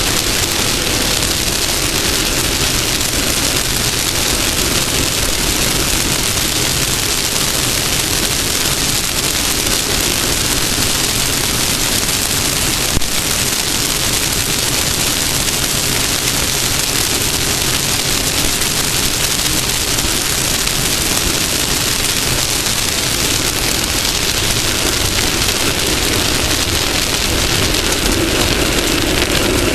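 Off-road race car running at speed: a steady, loud, even roar with no clear engine note and no letup.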